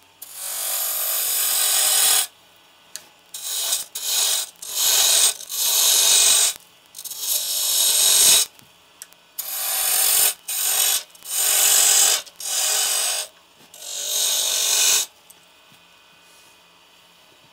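Spindle gouge cutting into a spinning wood blank on a Record Power lathe: a run of about a dozen hissing cuts of half a second to two seconds each, with short pauses, as a cove is shaped. About fifteen seconds in the cutting stops, leaving only the faint steady hum of the lathe running.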